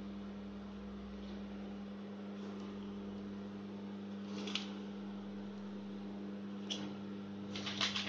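LG convection microwave oven running and heating, a steady electrical hum. A few short clicks come about halfway through and again near the end.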